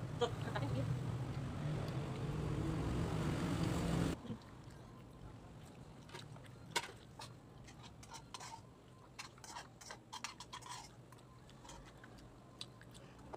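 A steady low rumble with hiss cuts off suddenly about four seconds in. After it come soft, scattered clicks and crunches of someone chewing food.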